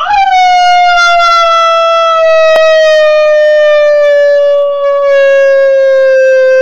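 A person howling to set a dog off: one long, loud howl, held steady and sinking slowly in pitch, with a brief waver about five seconds in.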